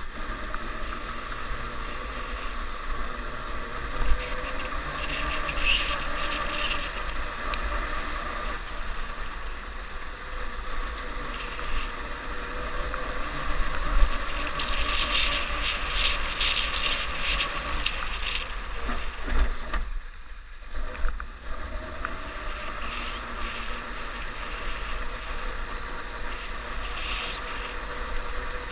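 Snowmobile engine running steadily while riding along the track, with the engine note falling away briefly about two-thirds of the way through.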